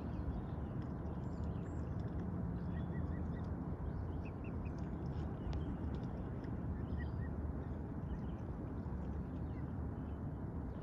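Mute swan cygnets giving a few short, faint, high peeps, in small runs of two to four, over a steady low background rumble.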